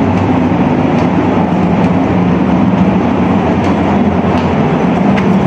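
Steady, loud drone of a ship's engines heard from inside the vessel: a constant low hum and rumble that holds level throughout.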